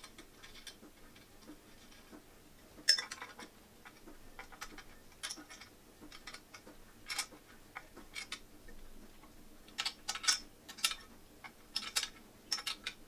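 Screwdriver and screw hardware working against the metal tube frame of an overbed table: a string of light, irregular clicks and clinks, coming more often in the last few seconds.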